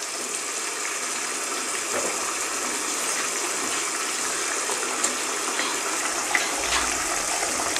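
Grated carrots cooking with ghee and sugar in an open non-stick kadai, bubbling and sizzling as a steady watery hiss with a few small pops. The sugar has let out its water, and the halwa is boiling down uncovered so that the liquid dries off.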